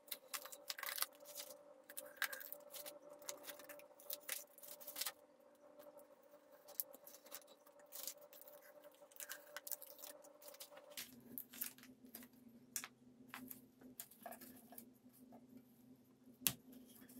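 Faint, irregular clicks and light taps of small parts being handled, over a low steady hum that drops in pitch about eleven seconds in.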